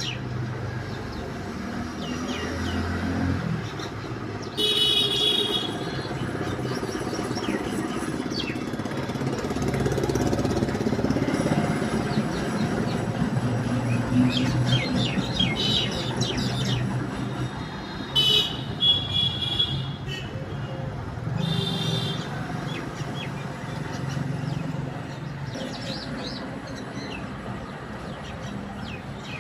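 Steady street traffic with vehicle horns tooting briefly three times, about five, nineteen and twenty-two seconds in, and scattered quick chirps from mynas.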